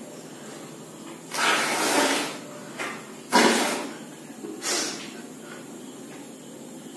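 A person blowing hard in three puffs of breath at a ping-pong ball floating in a cup of water. The first is a long blow about a second in, the second is shorter and the loudest near the middle, and a brief puff follows soon after.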